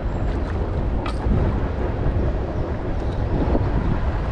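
Wind buffeting the microphone in a steady low rumble over the rush of flowing stream water, with a single light click about a second in.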